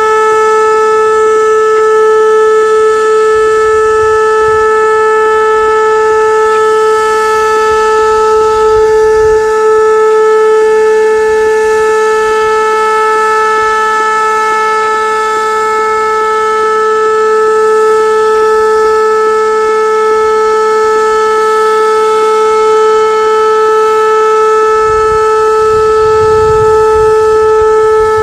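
Whelen WPS-2809 electronic outdoor warning siren sounding a loud, unwavering steady tone at about 435 Hz, rich in overtones.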